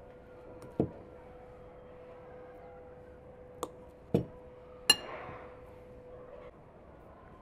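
A metal knife knocking against a small bowl while cutting butter: four sharp clinks spread over a few seconds, the last and loudest one ringing briefly.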